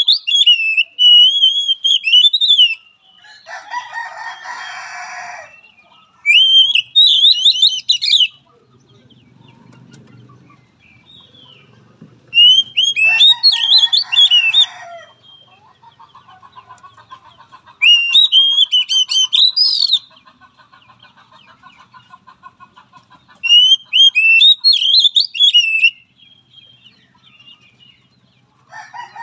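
Oriental magpie-robin singing in bursts: short, high, warbling whistled phrases about every five seconds, mixed with harsh raspy notes and, midway, a long rapid chattering rattle.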